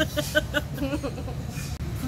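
A quick run of short voice sounds near the start, then a brief vocal sound, over a steady low background hum.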